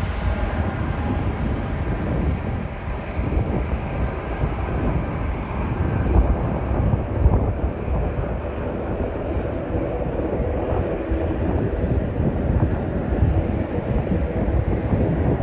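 Jet airliner engines: a steady, loud, low rumble whose hissing top slowly dulls as the aircraft draws away.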